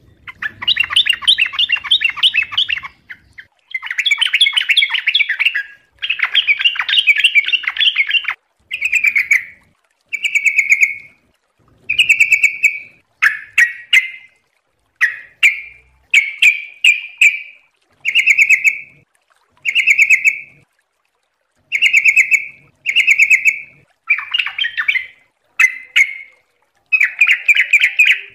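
Yellow-vented bulbul (trucukan) singing rapid bubbling, chattering phrases: three long runs in the first eight seconds, then shorter phrases every second or two.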